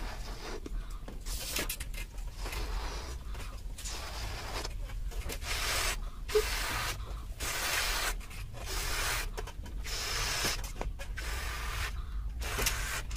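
A person blowing up a latex balloon by mouth: repeated breathy puffs of air into the balloon, about one a second, with short pauses to draw breath between them.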